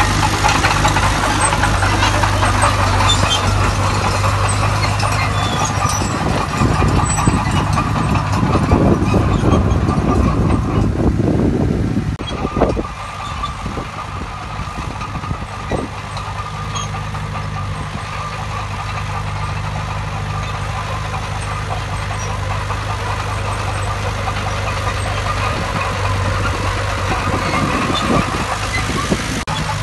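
Heavy diesel engine of earthmoving machinery running steadily, with a louder, rougher stretch of working noise in the first half that drops off sharply about twelve seconds in. A few knocks follow, then the engine settles back to a steady run.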